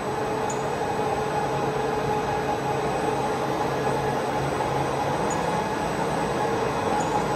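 Large Škoda SRM 125/4000 CNC lathe running, a steady mechanical hum with a steady whine over it.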